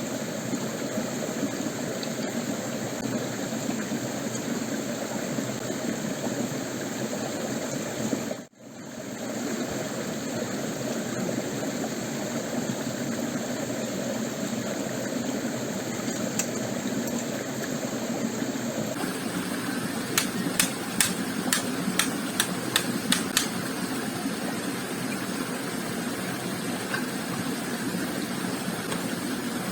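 Stream water running steadily over stones. In the second half a quick run of sharp clicks or knocks, several a second for a few seconds, with a few more near the end.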